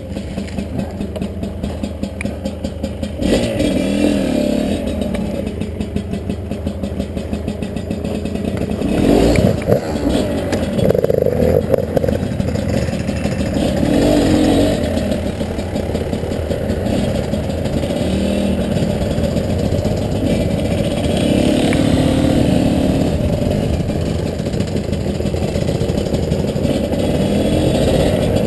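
Two-stroke dirt bike engine, a Honda CRM250R, running under way, its note rising and falling as the throttle is opened and closed, with a brief clatter about nine seconds in.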